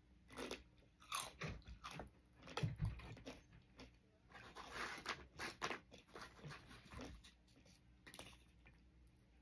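Crunching and chewing of Doritos tortilla chips dipped in beans and cheese: a run of sharp crunches, loudest in the first few seconds, thinning to softer chewing near the end.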